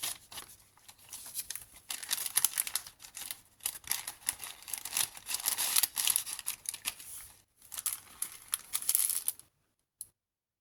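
Paper pages of a handmade junk journal rustling and crinkling as they are handled and turned, in dense irregular bursts. The sound cuts off suddenly near the end.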